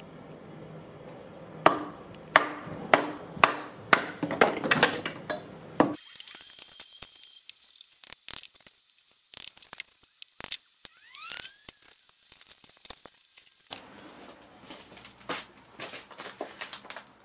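Wooden club knocking on the back of an axe lodged in a sycamore log to split it: about ten sharp knocks roughly half a second apart. Quieter scattered taps and clicks of wood follow, with a short rising-and-falling chirp about eleven seconds in, then lighter knocking and clatter near the end.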